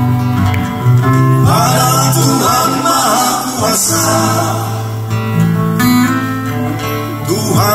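Live acoustic guitars strumming and picking, with a man's voice singing a melody over them from about a second and a half in.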